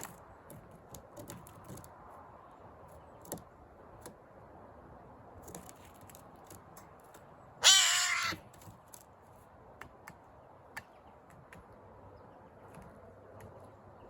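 A jay gives a single loud, harsh call lasting under a second, about halfway through, with a few faint clicks scattered around it.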